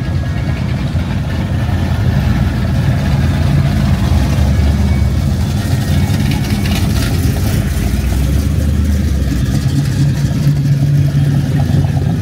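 Car engine running with a steady low rumble.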